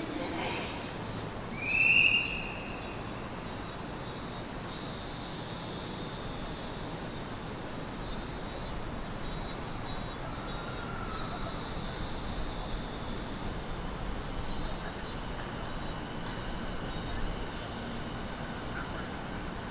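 Quiet outdoor railway-platform ambience: a steady high hiss, with one short, loud rising whistle-like call about two seconds in and a fainter, lower one around the middle.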